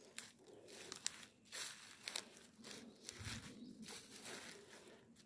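Footsteps crunching through dry fallen leaves, a crackly step about twice a second.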